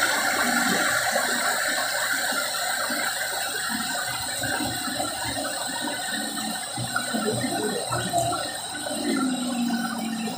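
Small garden stream running and splashing down a series of little rock cascades, a steady rush of water with irregular short gurgles over it.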